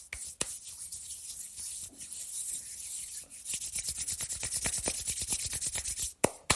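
Hands brushing off against each other. A few separate swipes give way to a fast run of rubbing strokes that blur into a steady swishing hiss, and separate brushing strokes return near the end.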